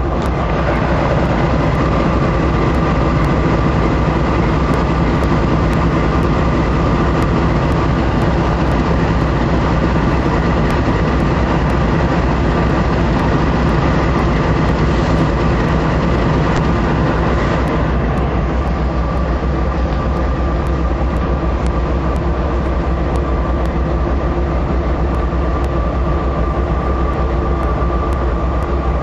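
GE C44AC (AC4400CW) diesel-electric locomotive running steadily under load, its V16 diesel giving a deep, even drone with a steady high whine over it. The level eases slightly about two-thirds of the way through.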